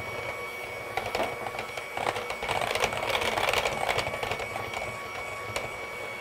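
Electric hand mixer running, its beaters whipping a cream cheese glaze in a glass bowl: a steady motor whine with scattered clicks, louder from about two to four seconds in.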